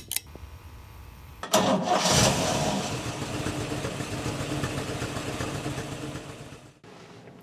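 An engine starts about a second and a half in, runs steadily, then fades away near the end.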